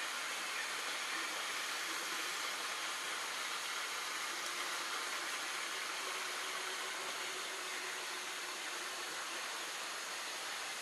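Tropical rainforest ambience: a steady, even hiss.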